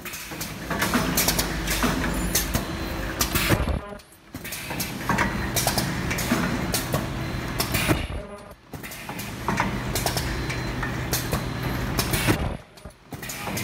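Automatic webbing cutting and welding machine running through repeated cycles: clattering clicks and air hiss over a steady hum, with a brief lull about every four seconds.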